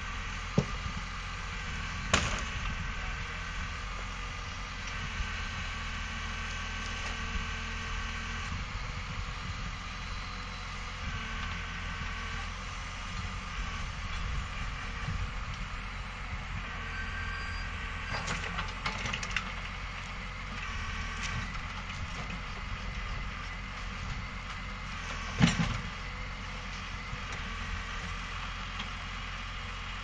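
John Deere 3650 tractor's diesel engine running steadily, driving the hydraulics of a timber-trailer crane as it lifts and swings logs. A higher tone comes and goes, and there are a few sharp knocks of logs striking wood, the loudest about 25 seconds in.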